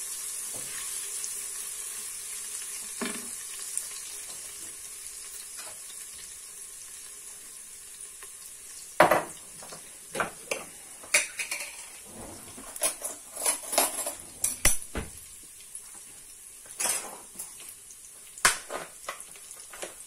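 Garlic sizzling in hot oil in the non-stick pot of an electric multicooker, stirred with a silicone spatula at first, the sizzle slowly dying down. From about halfway, a run of sharp clicks and knocks of things being handled.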